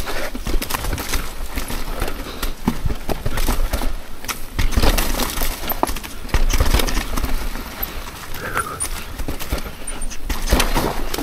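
Mountain bike descending a rough dirt trail: tyres rolling over rocks and roots, the bike rattling and clattering at every bump, with a steady rumble of wind on the microphone.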